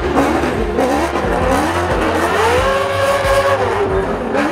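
A V8 drift car at full drift: the engine revving up and down, climbing to a held high pitch in the middle and dropping toward the end, with the tyres squealing under it.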